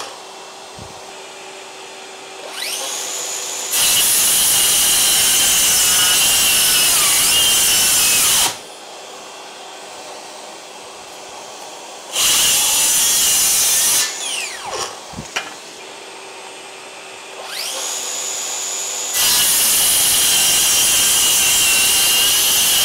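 Bosch GKS18V-25GCN 18V brushless circular saw at speed setting 6 spinning up with a rising whine, then cutting through a board along a track, loud and steady. About two-thirds of the way through it winds down with a falling whine, then spins up again and cuts again near the end.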